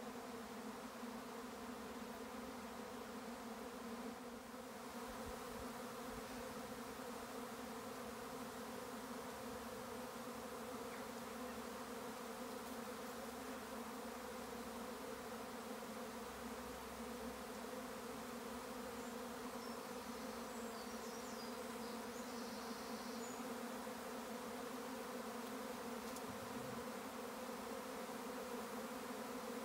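A honeybee swarm in flight: the steady, dense hum of many bees' wings, a drone that holds an even pitch.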